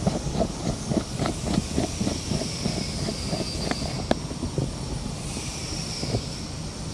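Handling noise of a phone being set on its stand: a quick run of light knocks and clicks, about three or four a second, that stops about four and a half seconds in, over a steady low outdoor rumble.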